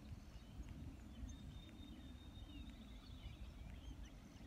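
Faint scattered chirps from small animals, with one high, steady trill lasting about two seconds in the middle, over a low wind rumble.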